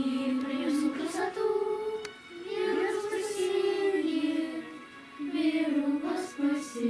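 A group of girls singing a slow song together, long held notes moving from one pitch to the next, with short breaks between phrases.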